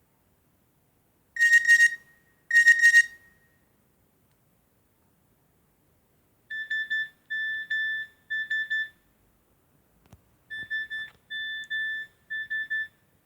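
Nokia 6233 mobile phone playing ringtones through its loudspeaker. Two short buzzy tones sound about a second apart. After a pause, a different tone follows: two groups of three short beeps, with a faint click between the groups.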